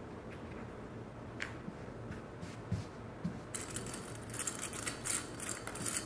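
Soft rustling and brushing of lightweight woven fabric being smoothed and shifted by hand on a cutting mat, sparse at first and almost continuous over the last couple of seconds, with a couple of soft knocks.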